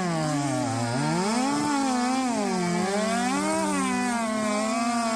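Two two-stroke chainsaws at full throttle, cutting through logs side by side in a race. Their engine pitch dips and rises as the chains load up in the wood.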